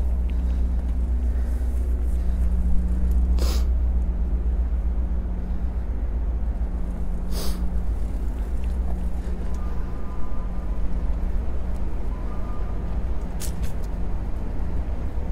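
Steady low rumble of wind buffeting and road noise on a bicycle-mounted GoPro while riding, with three sharp knocks spread through it.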